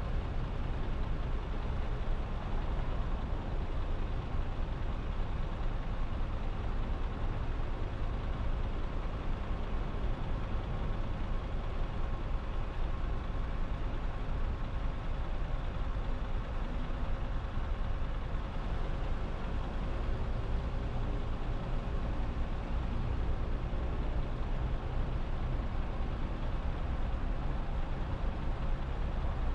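Traffic idling at a standstill: a steady low engine rumble, with a city bus's engine running alongside and a faint steady hum over it.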